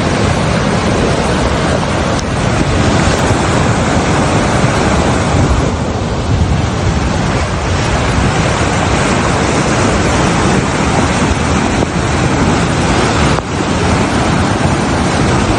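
Loud, steady rush of an overflowing river in flood, with wind noise on the microphone.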